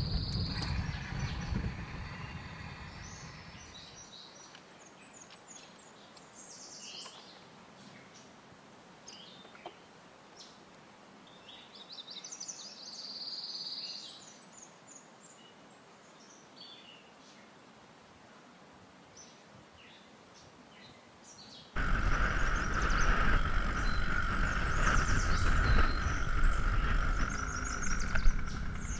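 A vehicle rumbling along a gravel road fades away over the first few seconds. Then comes a quiet stretch of birds chirping and whistling. About 22 seconds in, the steady, much louder running of a small outboard motor pushing a canoe cuts in.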